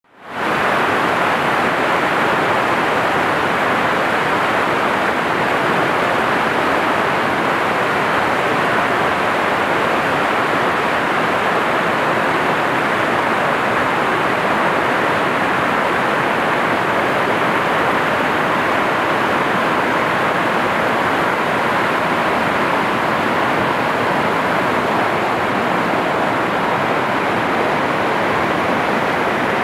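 Whitewater of a river rapid rushing over rocks, a loud, steady, unbroken rush that fades in at the very start.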